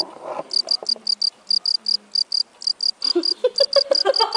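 Insect chirping: rapid, evenly spaced short high chirps, about five a second.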